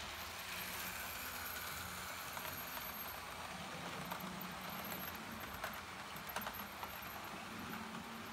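Model train running past along the layout track, a steady low hum with a few light clicks about halfway through as the coaches go by.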